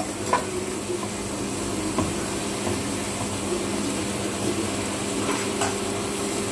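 Food sizzling steadily as it fries in a pan, stirred with a metal spatula, with a few light knocks of the spatula against the pan.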